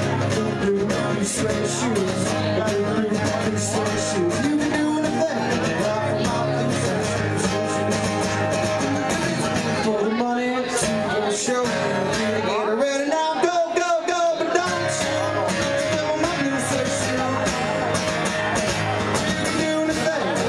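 Acoustic guitar strummed steadily with a man singing over it. About ten seconds in, the low strumming briefly thins out for a few seconds, then comes back.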